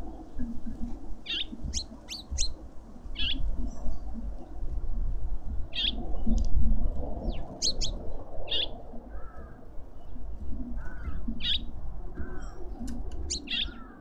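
Small garden birds giving short, high chirps at irregular intervals, with a few lower slurred notes in the second half. Underneath is a low, gusting rumble of wind on the microphone.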